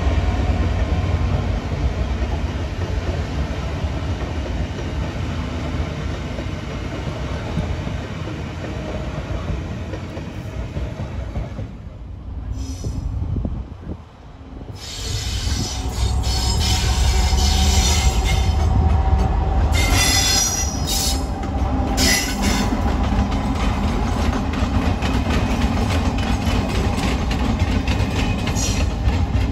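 GBRf class 66 diesel locomotive hauling coaching stock past with a steady deep rumble. After a short lull about twelve seconds in, a pair of Colas Rail Freight diesel locomotives run through the yard, with high wheel squeal around the middle.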